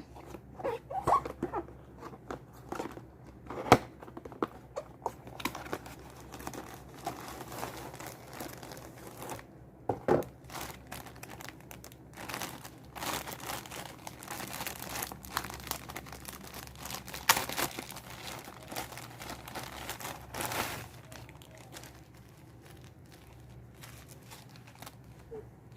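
Plastic packaging of a back support belt crinkling and rustling as it is unwrapped and handled, with irregular crackles and a few sharper, louder crunches.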